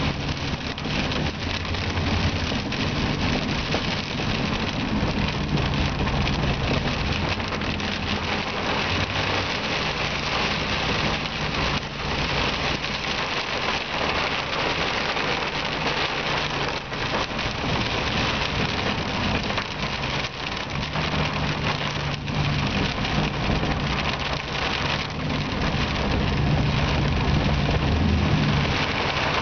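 Heavy rain drumming on the roof and windshield of a moving car, with the engine running underneath and its low hum shifting up and down in pitch as the revs change.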